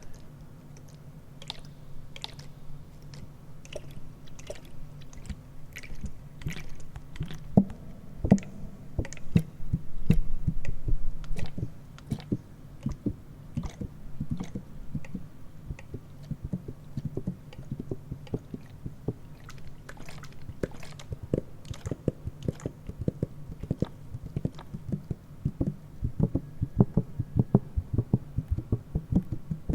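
ASMR tapping on objects: irregular light taps and clicks over a steady low hum, with a louder low rubbing sound for about two seconds about a third of the way in. The taps grow faster and denser near the end.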